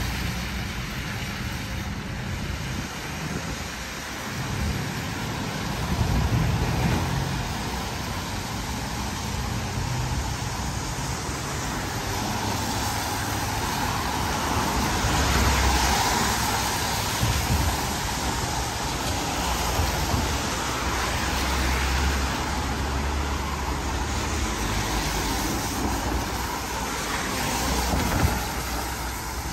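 City street traffic: cars passing with engine rumble and tyre noise, one passing vehicle swelling loudest about halfway through.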